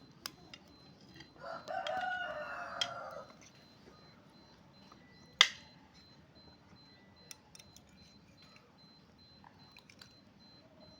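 A rooster crowing once, a call of about two seconds starting about a second and a half in. A single sharp click about five and a half seconds in, with a few faint ticks around it.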